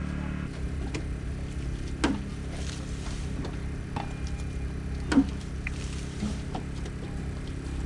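Engine-driven water pump running steadily while it drains the flooded excavation pit, with a few sharp knocks from digging in the pit, the loudest about five seconds in.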